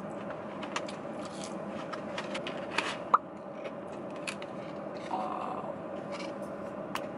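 Eating and handling fast-food packaging: scattered crunches, clicks and paper-and-cardboard rustles as waffle fries are chewed and a cardboard sandwich box is opened and held, over a steady hum inside a parked car.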